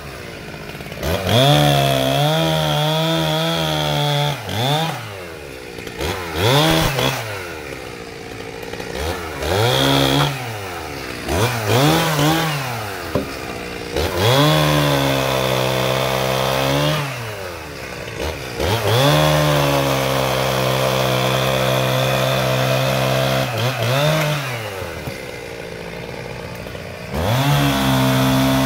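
Chainsaw being pruned through a tree's branches, revved up again and again and held at full speed for a few seconds at a time, dropping back to idle in between with short throttle blips.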